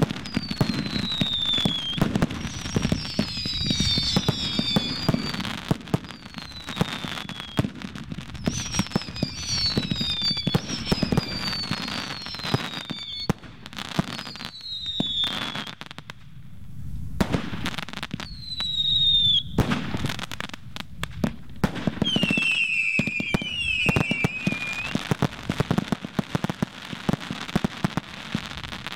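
Fireworks display: a rapid, dense run of launch thumps and bursting bangs from multi-shot barrages, with many whistles that fall in pitch over about a second each. The bangs ease off briefly a little past halfway, then build again.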